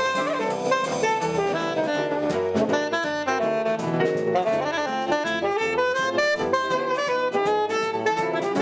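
Small jazz band playing, a saxophone carrying the melody over a drum kit keeping a steady beat.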